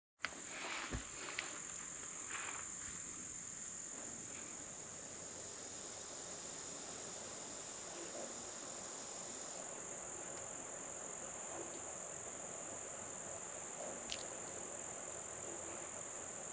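Insects chorusing in one steady high-pitched drone, with a few faint knocks and one sharp click.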